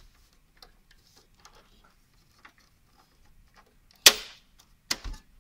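Plastic front bezel of a Dell OptiPlex desktop being pushed onto the metal chassis: faint light clicks of handling, then two sharp snaps about four and five seconds in as its clips lock into place.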